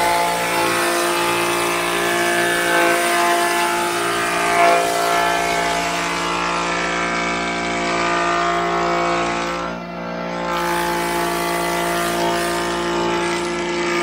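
Large wood jointer (surface planer) cutting an old wooden beam that is pushed across it by hand: a steady motor hum and whine under the rasping hiss of the cutterhead taking off shavings. The cut eases briefly about ten seconds in, then goes on.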